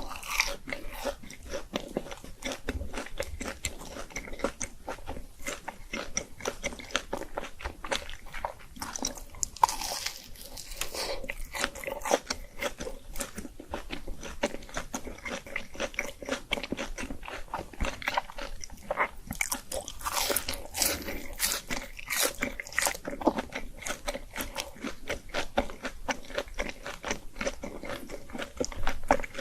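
Close-miked crunching bites and chewing of crispy fried food, a dense run of irregular crackles.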